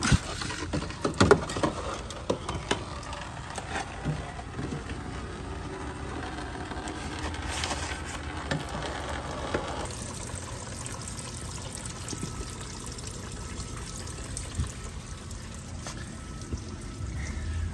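Engine coolant pouring and trickling from the disconnected bottom coolant hose into plastic catch bins, splashing steadily. Several sharp knocks from the plastic bins being shifted come in the first two seconds.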